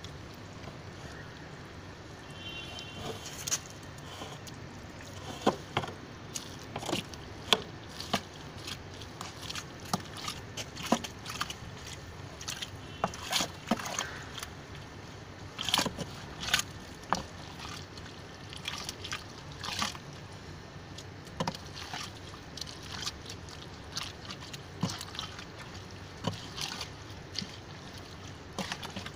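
A stick stirring a drum of wet, decomposing waste-flower compost slurry: irregular sloshing with many scattered sharp knocks and clicks.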